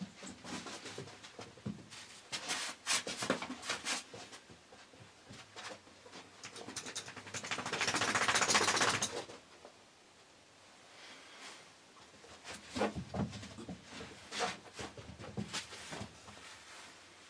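Jack Russell terrier stirring in the stand: scattered scratches and clicks of claws with rustling, and a longer scratchy rush about seven to nine seconds in that stops suddenly.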